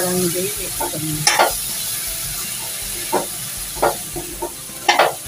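Metal spatula stirring chopped cluster beans through hot oil and spices in a metal kadhai, over a steady sizzle. The spatula scrapes against the pan several times, with a pair of scrapes close together near the end.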